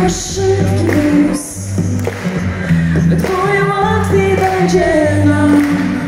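Live pop-rock band playing on stage, with drums, bass and guitars under a singing voice, recorded from among the audience in a large hall.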